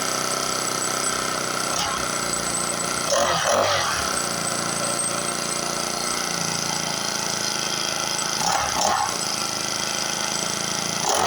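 Small four-stroke brush cutter engine running steadily just after being brought back to life by cleaning carbon off its piston, with brief rises in speed about three and a half seconds in, near nine seconds, and at the end.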